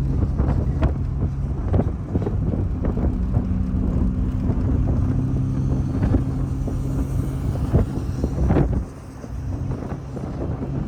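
Car running, heard from inside the cabin: a steady engine and road hum with scattered knocks and rattles. The sound dips briefly after a louder knock about eight and a half seconds in.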